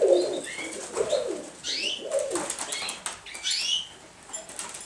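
Domestic pigeons in a loft: several high squeaky calls that rise and fall, typical of young pigeons, mixed with low wavering coos and some wing flapping.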